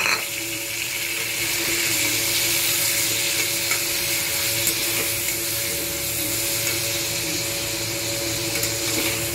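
Potato chunks sizzling steadily in hot oil in a kadai, with a metal spatula stirring and turning them in the pan.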